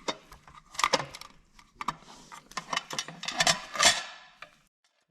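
Hands working small metal and plastic parts of an LED shop light's housing and cord fitting: a quick run of clicks, clinks and rattles with a few louder knocks, cutting off suddenly near the end.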